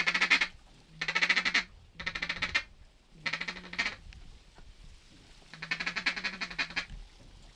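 A series of five raspy duck quacks, each drawn out for half a second to a second, at a steady pitch with gaps of about half a second between them, the last one longest.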